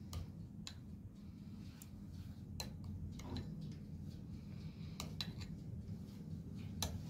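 Light, scattered clicks and taps of a spoon against a bowl and serving plate while toppings are spooned on, over a low steady hum.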